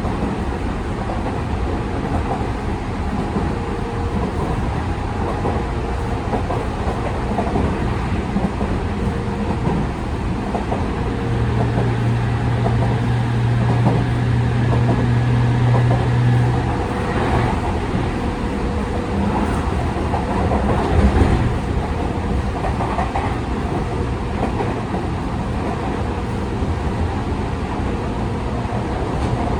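Running noise inside a Tokyu 5000 series electric train's motor car (Hitachi IGBT-VVVF inverter): wheels rolling on the rails with a steady rumble and some clickety-clack. A steady low hum comes in for about five seconds a third of the way through, and there is a brief knock a little past the middle.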